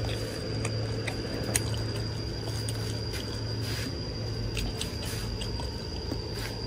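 Steady electrical hum with a thin high whine and scattered small ticks, from an electric cooker running off a car battery inverter as it heats up.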